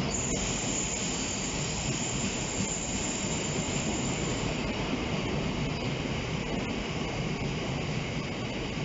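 Freight wagons rolling past close by: a steady rumble and rattle of wheels on rail, with a thin high-pitched squeal through the first half and a few faint clicks.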